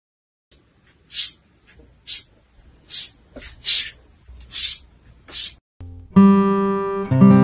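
A cat scratching at a wooden door with its front paws: seven short scrapes, roughly one every second. About six seconds in, acoustic guitar music starts.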